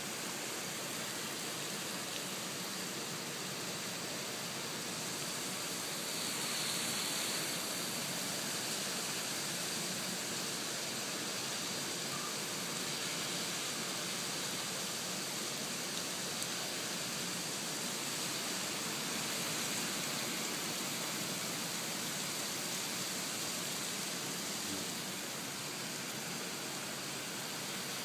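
Steady hiss of rain falling, swelling slightly about six seconds in.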